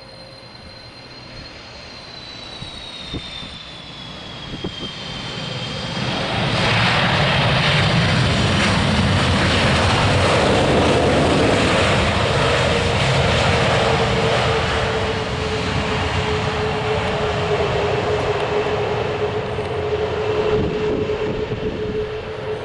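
Jet engines of an Airbus A318-121 airliner, Pratt & Whitney PW6000 turbofans, passing close. A high engine whine falls in pitch, then broad jet noise swells to loud about six seconds in and holds, with a steady tone under it.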